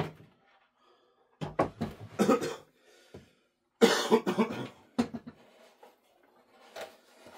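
A man coughing in short fits: a first fit about a second and a half in and the loudest one about four seconds in, with a single click at the very start.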